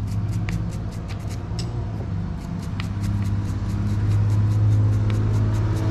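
A steady low hum, with light, irregular clicks of steel bolts and small parts being handled and sorted by hand on a rubber mat.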